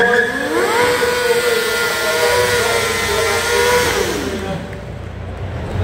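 Stunt motorcycle's engine revving up and held at high revs during a smoky rear-wheel burnout, then dropping back after about four seconds.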